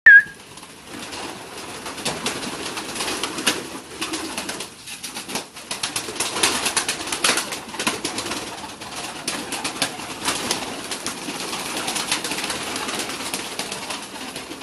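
Pigeons flapping and clapping their wings in a small wooden loft: a dense, irregular run of wing claps and flutters, with some cooing underneath.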